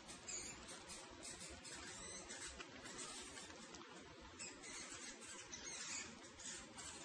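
Faint, steady scratching and rustling of mice scurrying about.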